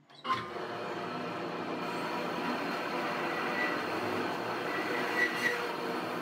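Band saw running and ripping through a block of wood, a steady mechanical sound with an even hum. It starts suddenly just after the beginning.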